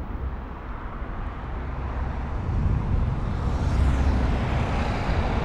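Wind rush and road rumble while riding an electric scooter, swelling to a peak about four seconds in.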